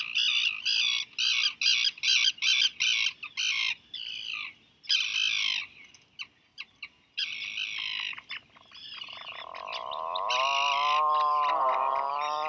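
Atlantic puffins calling in their nest burrow. A puffling gives quick high peeps, about three a second, in bursts over the first few seconds. From about nine seconds in, a lower, drawn-out call rises and falls in pitch.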